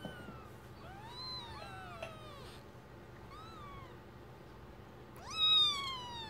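Newborn kittens mewing: a handful of thin, high calls, each rising then falling in pitch, some overlapping, with the loudest a little after five seconds in.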